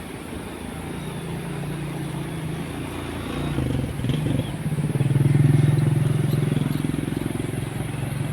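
A vehicle engine running with a steady low drone that grows louder from about three seconds in, loudest around the middle, then eases off slightly.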